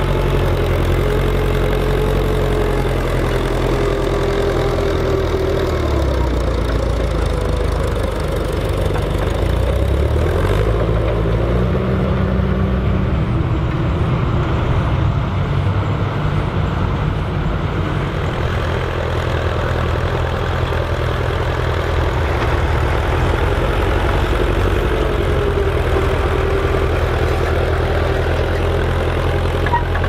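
Vintage Ferguson tractor engines running steadily, first a Massey Ferguson 35 working under load while pulling a plough. The engine note dips and then rises again about ten seconds in.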